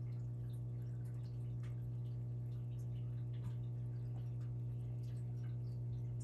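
A steady low hum with faint, scattered ticks over it.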